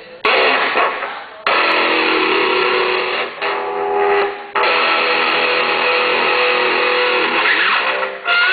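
Electric guitar played through an amplifier with heavy distortion: about four loud chords struck, each ringing for a second or more before being cut short.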